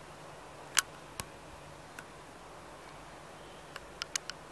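A few sharp clicks over a faint steady hiss: one loud click just under a second in, two fainter ones soon after, and a quick run of four near the end.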